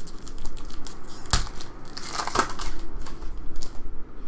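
Trading-card packs and cards being handled: plastic wrapper crinkling and cards rustling as they are flipped through. There are irregular clicks, with two sharper snaps a little over a second in and again past the middle.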